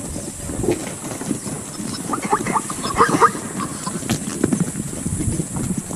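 Hooves of a herd of running plains zebras and walking Cape buffalo clattering on dry, stony ground, many quick uneven knocks, with a burst of short animal calls about two seconds in.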